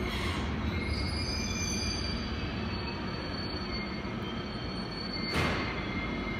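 A 521-series electric multiple unit pulling slowly away along the platform after being uncoupled from the other set: a steady low running rumble with a faint wheel squeal. A short loud hiss comes about five seconds in.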